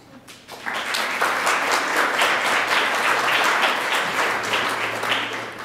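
Audience applauding, building up about half a second in and tapering off near the end.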